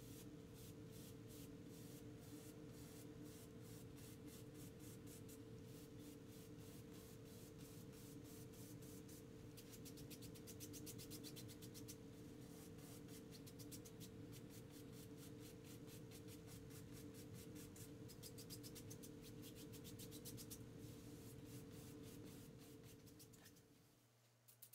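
Faint, quick, repeated brush strokes on canvas as an oil-paint brush is dragged straight down through wet paint, over a low steady hum; the strokes stop shortly before the end.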